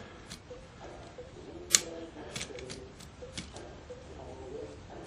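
Plastic clicks from a windshield wiper blade being handled and fitted onto its wiper arm: one sharp click just under two seconds in, then several lighter clicks over the next couple of seconds.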